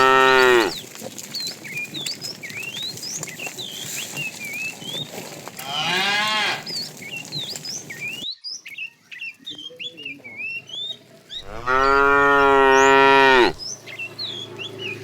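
Cattle mooing: a loud moo ending just as it begins, a quieter moo about six seconds in, and a long, loud moo about twelve seconds in. Faint high chirps run underneath.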